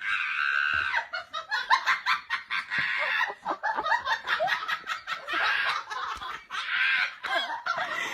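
High-pitched laughter in repeated bursts.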